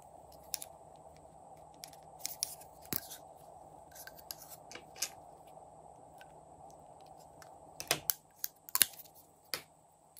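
Plastic lipstick tubes and caps clicking and tapping as they are handled and pulled open, with metal scissors snipping off chunks of lipstick. Sharp clicks come scattered throughout over a faint steady hum, the loudest about eight to nine seconds in.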